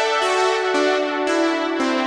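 Cherry Audio Elka-X software synthesizer, an emulation of the Elka Synthex, playing a factory preset: sustained chords, a new chord struck about every half second, each starting with a bright attack.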